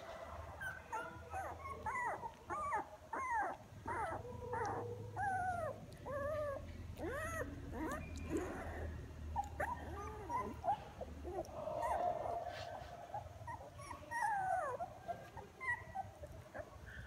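Newborn puppies whimpering and squealing in many short cries, each rising then falling in pitch, one after another.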